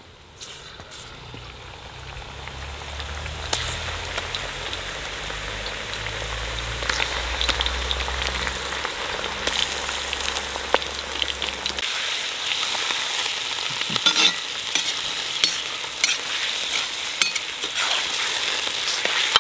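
Beef chunks sizzling as they fry in hot rendered beef fat and onions in a kazan. The sizzle builds over the first few seconds as the meat goes in, with scattered clicks of a metal skimmer stirring against the pot.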